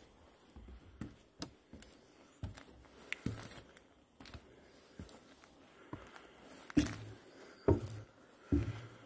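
Objects being handled: scattered light clicks and knocks with some crinkling, then three heavier knocks in the last few seconds.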